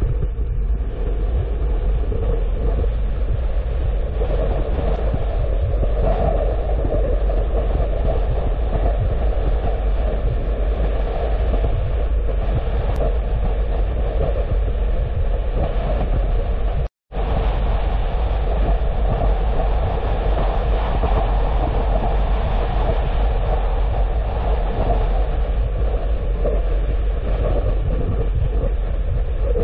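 Steady low rumble of road and engine noise from a car being driven, with no change in pace. The sound cuts out completely for a split second about seventeen seconds in.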